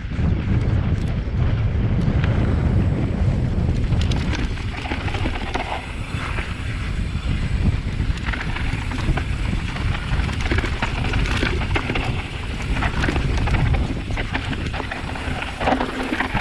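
Wind buffeting the microphone of a camera riding along on a mountain bike descending a loose, dry dirt trail, with tyres crunching and sliding over the dirt and repeated clattering knocks from the bike over bumps.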